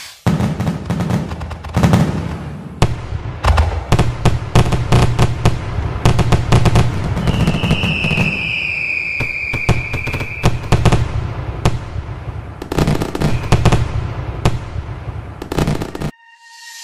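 Fireworks going off: rapid, irregular bangs and crackling over a low rumble, with a high whistle, falling slightly in pitch, for about three seconds in the middle. The sound cuts off suddenly near the end.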